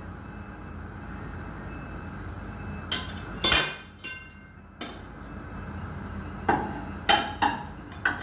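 A series of sharp clinks and knocks, the loudest about three and a half seconds in with a short ring after it, over a steady low hum.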